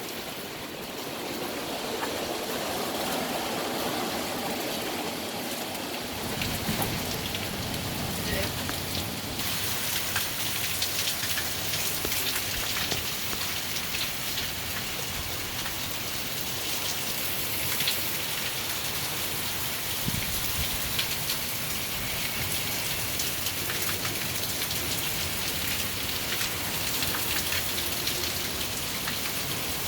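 Heavy rain falling steadily, as a dense hiss that thickens after the first several seconds.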